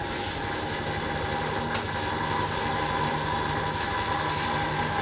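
Electric gear pump of a mini fuel dispenser running steadily as fuel pours from the nozzle into a stainless steel measuring can: a constant hum over the rush of liquid, dispensing a 5-litre calibration measure.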